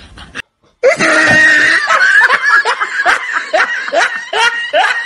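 A person laughing loudly in a quick run of repeated bursts, starting about a second in after a brief silence and cutting off abruptly at the end.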